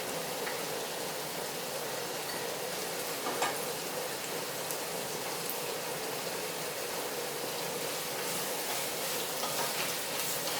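Sliced onions and curry leaves sizzling steadily as they sauté in hot oil in a pan, with a single light knock about three and a half seconds in.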